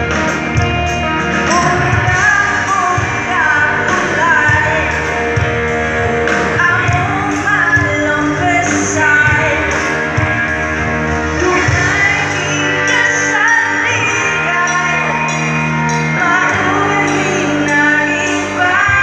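Live band playing a pop song through an outdoor stage sound system, with a singer carrying the melody over the instruments.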